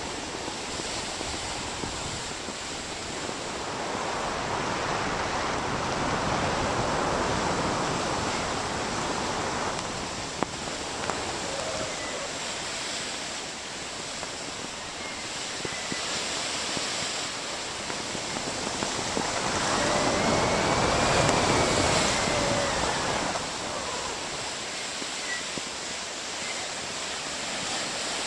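Sea wash rushing along a sailing ship's hull as it drives through the waves, mixed with wind, the rush swelling louder twice.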